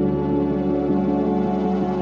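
Ambient background music of steady, sustained tones.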